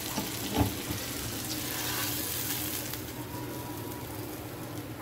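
Hot-oil tadka of cumin, garlic and green chilli sizzling as it is poured into cooked moong dal. The hiss is steady, loudest a second or two in, with a short knock of the pan about half a second in.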